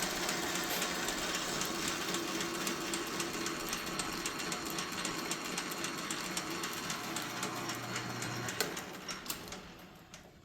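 South Bend 9-inch metal lathe, driven by its 3/4 horsepower single-phase motor, running steadily with a fast regular ticking. About eight and a half seconds in it is switched off with a click and coasts down.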